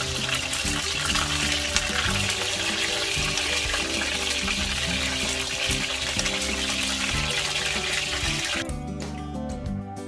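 Background music over the steady hiss of water running from a kitchen tap, which cuts off suddenly about three-quarters of the way through, leaving the music alone.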